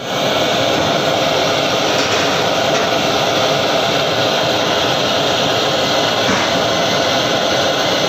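Gas burner flame blowing steadily against a submersible motor rotor to heat it: a loud, even rushing hiss.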